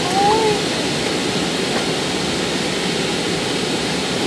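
Airliner cabin noise in flight aboard an Airbus A321: a steady, even rush of airflow and jet engines. A brief voice sound, a short gliding tone, comes about a quarter of a second in.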